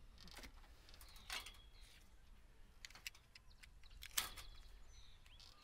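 A few faint, distant metallic clinks with a brief ring, the loudest about four seconds in, from the steel hoops and fittings of a hoop-house frame being taken apart.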